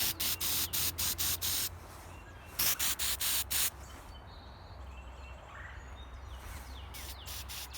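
Aerosol spray paint can sprayed in quick short bursts, about four a second, in three runs with a quieter gap in the middle. Faint bird chirps are heard in the gap.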